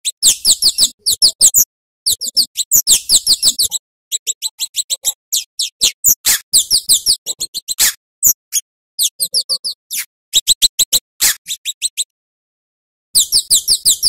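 Scarlet-headed flowerpecker (cabai jawa) calling: rapid runs of thin, very high chips, each note sweeping downward, in bursts of one to four seconds with short gaps between them.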